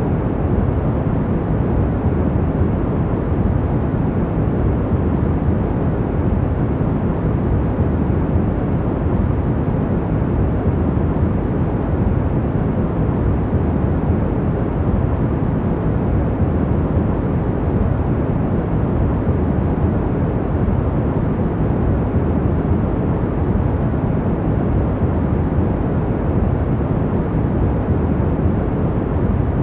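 Steady, unchanging sleep noise weighted to the low end, a deep even rush with little hiss, and no breaks, rhythm or events.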